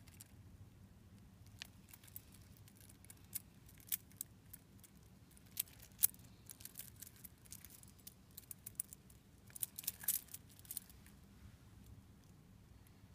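Steel link bracelet of a Seiko 'Pogue' chronograph watch clinking and jingling in scattered light metal clicks as the watch is handled and turned over in the hand, busiest near the middle and again about ten seconds in.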